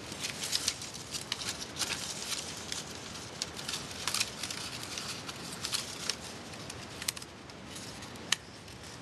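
Folded paper rustling and crackling as hands open out and fold down its cut layers: irregular light crackles and ticks throughout.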